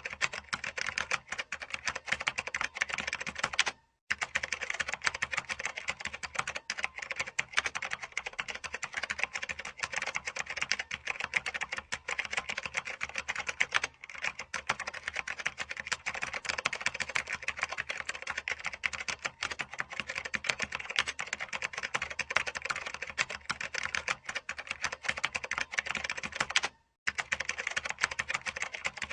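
Typing on a computer keyboard: a fast, dense stream of key clicks, broken by two short gaps, one about four seconds in and one near the end.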